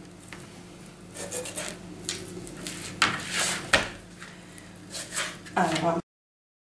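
Large kitchen knife cutting and scraping through a whole raw chicken on a plastic cutting board: irregular rasping cuts, with a sharp knock a little after three and a half seconds in. The sound cuts off abruptly near the end.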